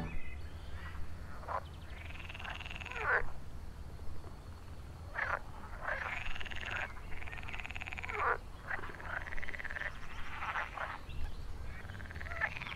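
Frogs calling: a string of short, pulsed croaks, each rising and then falling in pitch, coming every second or so, with a few sharp clicks between them.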